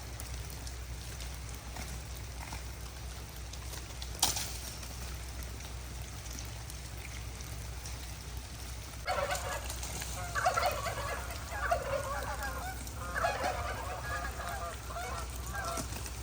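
Geese honking in a quick, repeated series from about nine seconds in. It is preceded by a single sharp crack about four seconds in.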